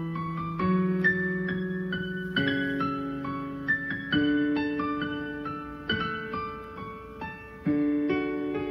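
Background piano music: slow chords struck every second or two, each left to ring and fade.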